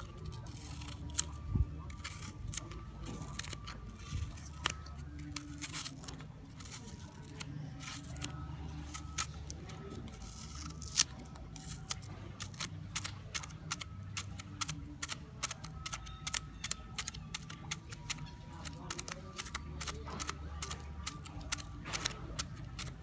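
Long fingernails tapping and scratching on an apple's skin: a run of quick, irregular sharp clicks with occasional louder taps, over a steady low hum.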